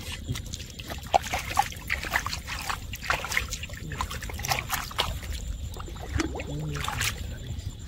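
Hand digging through wet mud and shallow water: irregular squelching, sloshing and many small splashes and clicks.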